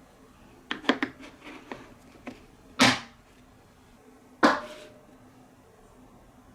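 Glass marbles clattering on a wooden marble run: a quick run of sharp clicks about a second in and a few lighter ticks, then two louder splashes, one near the three-second mark and another about a second and a half later, as marbles drop into water.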